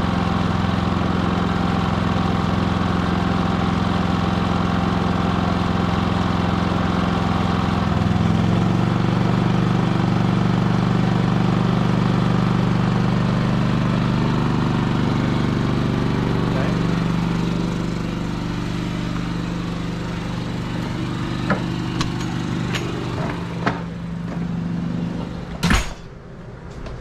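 Cummins 4500 inverter generator running steadily. Its engine note shifts about eight seconds in as it takes on an RV load of about 10 amps. The hum then grows fainter, with a few sharp clicks and a loud knock near the end.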